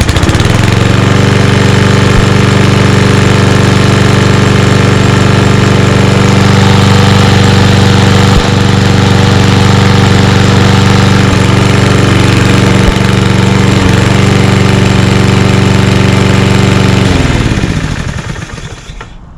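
Kohler Courage XT6 single-cylinder engine on a 2013 Toro Recycler walk-behind lawn mower, pull-started for its first start of the year and catching at once. It runs steadily at full speed, then is shut off about 17 seconds in and coasts down to a stop.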